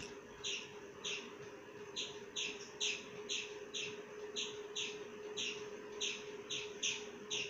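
A bird chirping over and over: short, sharp chirps about two or three a second, with a steady hum underneath.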